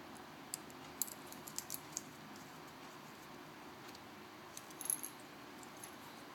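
Light, sharp clicks and ticks of small metal tools and phone parts being handled, in two short clusters, about a second in and again around five seconds in, over faint steady hiss.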